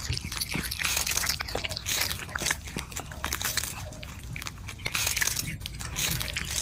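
Cats chewing and crunching on corn on the cob and dried fish: a quick, irregular run of crunchy bites.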